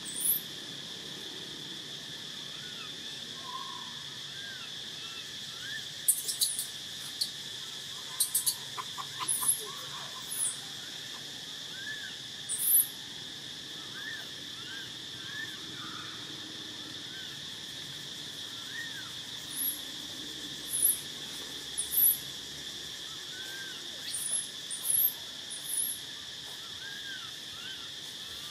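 Steady high-pitched drone of forest insects, with short, very high chirping calls breaking in again and again, in small clusters.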